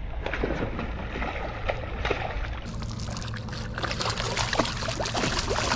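Water splashing and trickling in many small, irregular splashes next to the boat, as a hooked bass is fought on the line.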